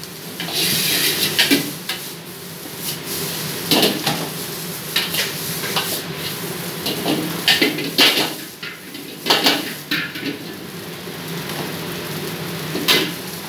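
A metal ladle scraping and clanging against a wok as fried rice is stir-fried and tossed, with irregular sharp clangs over a steady sizzle of frying.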